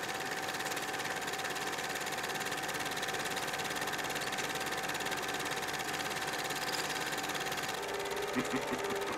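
Film projector running, a rapid, steady mechanical clatter with a faint steady whine.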